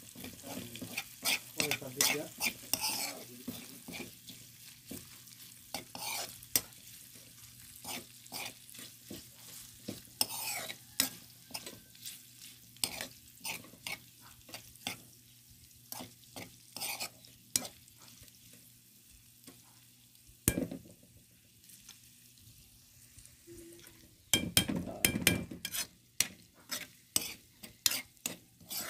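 A metal spoon repeatedly scrapes and clinks against a metal wok while stirring chopped meat frying in it, in irregular strokes. There is one heavier knock about twenty seconds in and a louder, busier stretch of clatter near the end.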